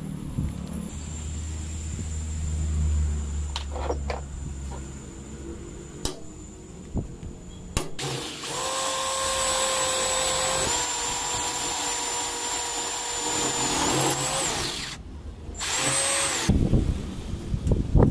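Power drill boring a hole into a large steel hex nut clamped in a bench vise. The motor runs steadily for about six seconds, dips slightly in pitch partway through, stops, then runs again briefly. A few knocks and clicks come before it.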